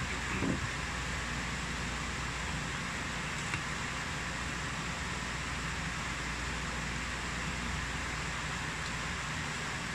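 Steady room hiss with no speech. There is a short low sound about half a second in and a faint click about three and a half seconds in.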